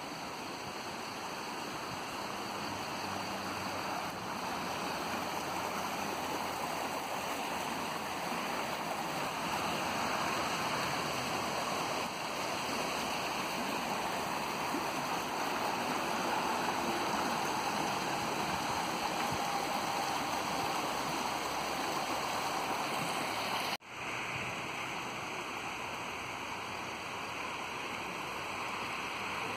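Shallow stream running over rocks: a steady rushing of water, broken once by a momentary cut-out near the end.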